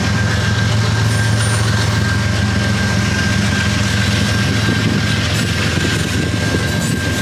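Canadian National freight train passing: the lead diesel-electric locomotive's engine gives a steady, loud low drone, with the train's rolling noise and a thin, steady high-pitched tone alongside.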